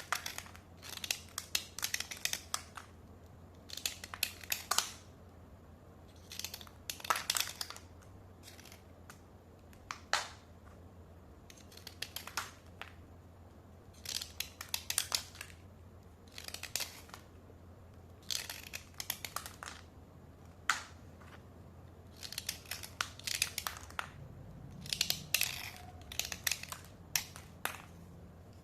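White slate pencils being dry-scraped: clusters of short, sharp scratching strokes follow one another, with brief pauses between the clusters.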